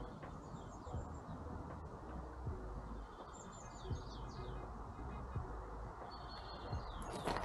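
Small birds chirping faintly in short, quickly falling calls, several in a row about three seconds in and a repeated call near the end, over a steady low outdoor rumble.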